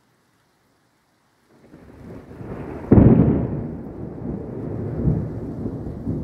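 Thunder: after a silent start, a low rumble builds about a second and a half in and breaks into a loud, sharp clap about three seconds in. It then rolls on, with a smaller second crack about two seconds later.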